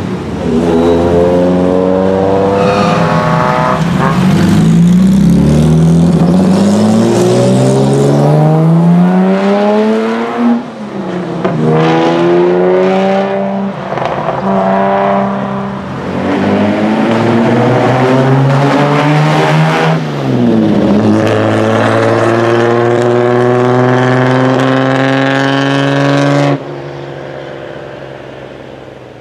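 Engines of 1950s open sports racing cars accelerating hard through the gears. The pitch climbs and drops back at each upshift, over and over. The sound falls away sharply near the end.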